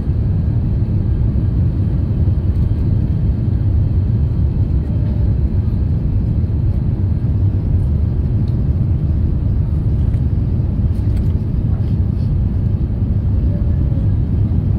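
Steady low rumble inside a jet airliner's cabin on its descent to land: engine noise and rushing air heard from a window seat.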